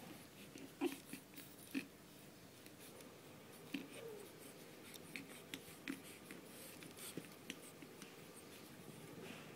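Two pug puppies about four and a half weeks old play-wrestling: faint mouthing and scuffling with scattered small clicks and taps, and a brief rising squeak about four seconds in.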